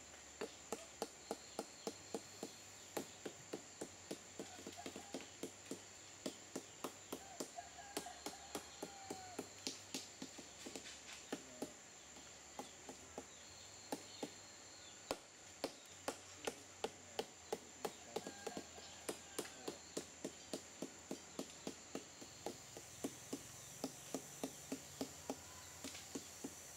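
Wooden mallet beating the flower stalk of a sugar palm, about two knocks a second, steady and repeated: the bruising that readies the stalk to be tapped for sap. A steady high insect drone runs underneath.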